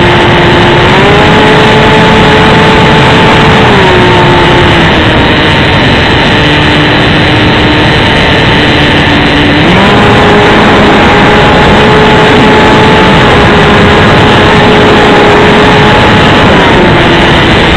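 The electric motor and propeller of an XK A600 DHC-2 Beaver RC plane whining in flight, heard from on board over heavy wind rush on the mounted keychain camera's microphone. The pitch steps up about a second in, drops back around four to five seconds, jumps up sharply near ten seconds and eases down near the end as the throttle changes.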